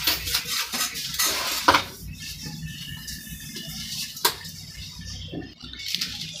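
Parts of a CNG sequential conversion kit being handled and unpacked from a cardboard box. A run of sharp clicks and knocks comes in the first two seconds, then softer rustling and handling noise, with another click a little past four seconds.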